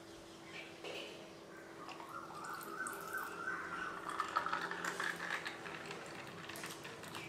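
Grape juice poured from a jug into a glass over ice, starting about two seconds in, its gurgling pitch rising as the glass fills, with a few clinks from the ice.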